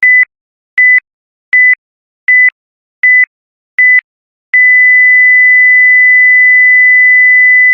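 Countdown timer's electronic beeps: six short, high-pitched single-tone beeps about three-quarters of a second apart, then a long unbroken beep from about four and a half seconds in, signalling that the countdown has reached zero.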